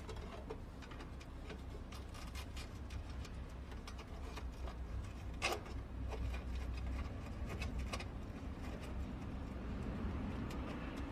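Irregular small clicks and scrapes of a screwdriver and cable wires against the metal terminals of a circuit-breaker panel, with one sharper click about five and a half seconds in, over a steady low rumble.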